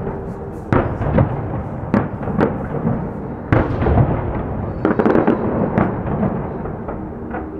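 Aerial fireworks shells bursting, a dozen or so sharp bangs at irregular intervals over a continuous rumble, with a quick cluster of cracks about five seconds in.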